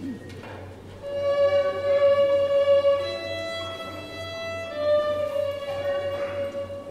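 A large ensemble of young violinists playing together in unison, starting about a second in with long held notes that step to a new pitch every second or two.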